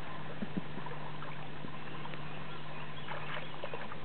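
Small water splashes and sloshing from a Weimaraner moving in shallow lake water, with two small splashes about half a second in, over a steady low hum.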